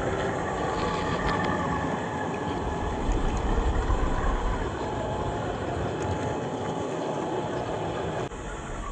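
An RC crawler's 550 brushed electric motor and gearbox whining under load, over the rough scrape and crunch of tyres on dirt and rock. The level drops suddenly near the end.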